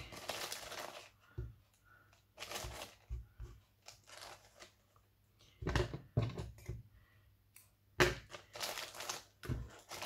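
Plastic zip-lock bag crinkling and yarn scraps rustling as they are handled on a craft table, in several short bursts with quiet gaps between.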